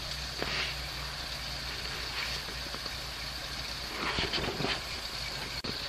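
Off-road vehicle engine idling steadily, with a few short swells of rushing noise over it.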